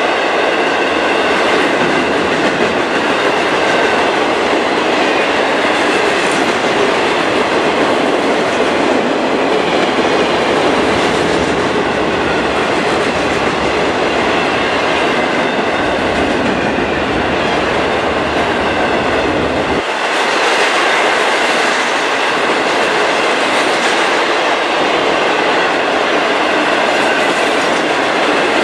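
A long train of empty steel ore hopper cars (ore jennies) rolling steadily past close by: a loud, continuous rumble and clatter of steel wheels on rail, with faint steady high-pitched tones over it. The deep part of the rumble thins out about twenty seconds in.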